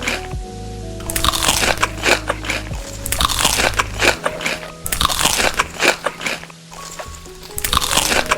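Crunchy food being bitten and chewed close to the microphone, in four bursts of loud crunches about two seconds apart, over background music.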